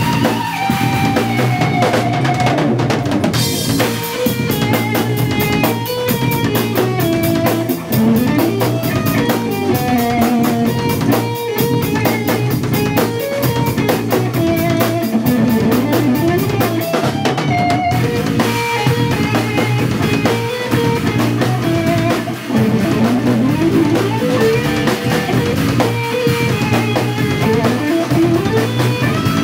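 Live instrumental jazz-rock fusion band playing: an electric guitar's lead lines, with bends and slides, over steady drum-kit playing with bass drum and busy cymbal work.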